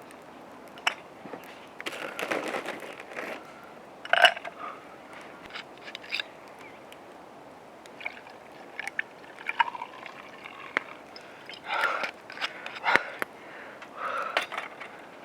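Scattered clinks, taps and brief scraping sounds of gear being handled, with a few louder knocks.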